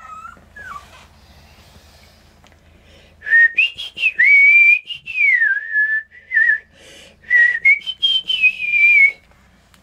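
A person whistling. A couple of short notes come at the start, then from about three seconds in a clear whistled line rises and falls in two phrases, stopping about nine seconds in.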